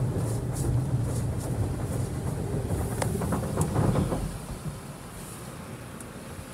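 Soft-touch foam brushes of an Autec Evolution car wash spinning against the car, heard from inside the cabin. There is a loud low rumble with a few ticks, which falls away about four seconds in to a quieter hiss.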